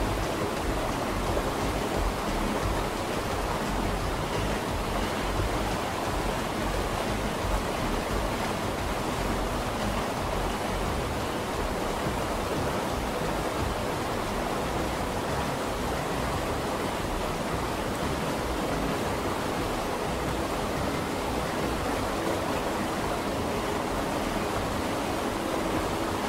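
Steady, even rushing noise of an ambience soundtrack, with faint sustained tones low underneath.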